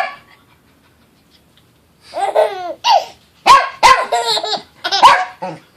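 A dog barking several times in quick succession, mixed with a baby's laughing squeals, starting about two seconds in.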